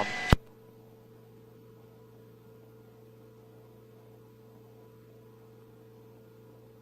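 A radio transmission cuts off with a sharp click just after the start, leaving a faint, steady electrical hum with a low tone and a higher one.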